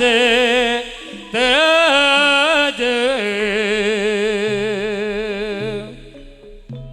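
Traditional kuda kencak accompaniment music: a high, heavily ornamented melody line with a wide vibrato, held in long notes over a lower sustained note. It dies down about six seconds in, with separate struck notes near the end.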